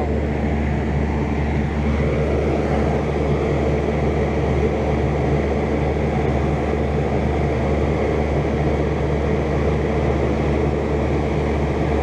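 RDT refrigeration condensing unit running, with Copeland scroll compressors and a fan: a loud, steady hum under a rush of air that does not change.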